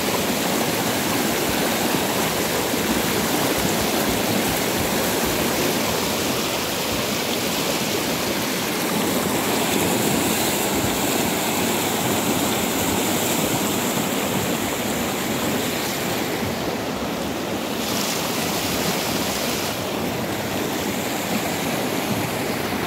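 Shallow river rushing over small rapids: a steady wash of churning water.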